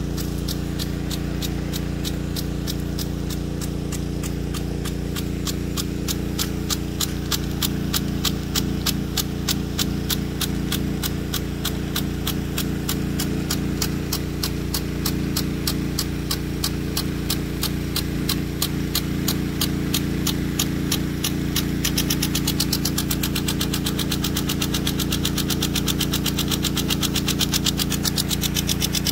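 Weathertec 10-67 impact sprinkler running, its drive arm striking the 1/4" drive nozzle's jet in a rapid, even ticking, over a steady low hum from the pump that feeds it. The hiss of the spray grows louder near the end as the jet sweeps over the microphone.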